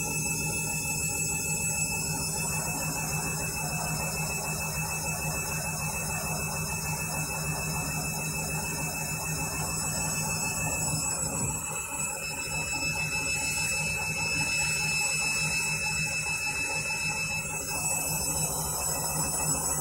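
Candy washing machine running steadily late in its delicate wash cycle, with a constant motor hum and a thin high whine.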